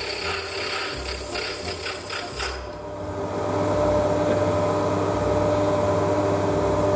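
Metal lathe taking a deep one-pass cut on a pulley blank, a dense metallic cutting noise with chips spraying off, which stops abruptly about two and a half seconds in as the tool clears the work. The lathe's spindle and gearing then keep running with a steady hum and whine.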